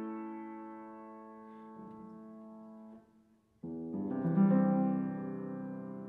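Solo piano music: a held chord fades away, a brief pause follows, then new chords come in a little after halfway.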